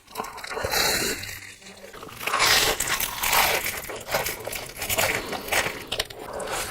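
Close-miked crunchy eating: a person biting into and chewing crisp food, with dense crackling crunches that grow loudest about two and a half seconds in.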